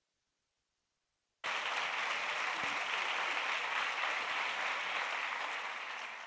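Audience applauding, cutting in suddenly about a second and a half in after silence, then holding steady and easing slightly near the end.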